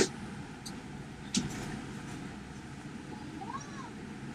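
A dog gives one short high whine, rising then falling, about three and a half seconds in. There is a sharp click at the very start and another about a second and a half in, over a low steady rumble.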